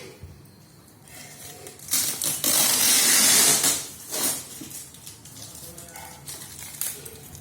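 Keyboard packaging being handled: a loud rustle and scrape of packing material for about two seconds near the middle, with smaller handling knocks before and after.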